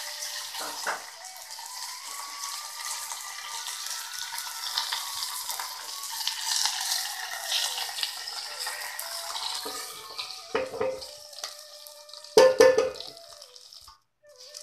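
Mustard seeds, urad dal and curry leaves sizzling and crackling in hot oil in a small steel tempering pan, the tadka for kunukku batter. Soft instrumental music plays under it. Near the end come two ringing metallic knocks, the second the loudest.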